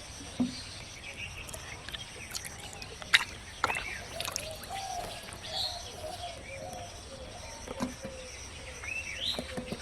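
Birds chirping over steady background noise, with scattered sharp clicks.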